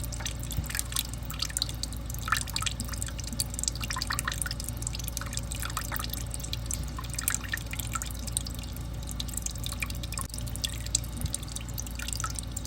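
Water dripping in many small, irregular drops, with a steady low hum underneath.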